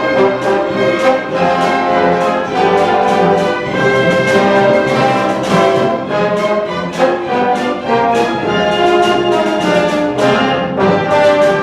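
Symphony orchestra playing a lively Hanukkah medley, brass prominent over the strings, with quick repeated note attacks.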